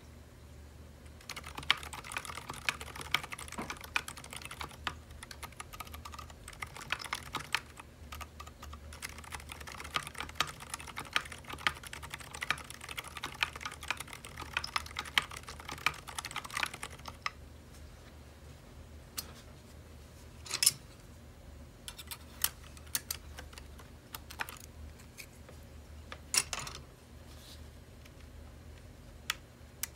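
Typing on a Sidewinder custom keyboard in HHKB layout fitted with ZealPC Zilent V2 silent tactile switches: a steady run of fast touch-typing for the first half or so, then slower, scattered single key presses, a couple of them louder.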